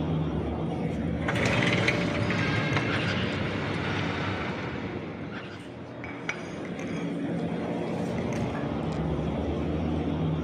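Home kitchen sounds played back through loudspeakers in an empty kitchen: a steady low hum under everything, a rushing stretch with light clinking of glass or dishes, and a sharp click a little after the middle.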